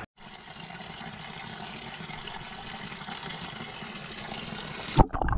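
Shallow creek water trickling and running over rocks, a steady hiss. Near the end, a sudden loud knock.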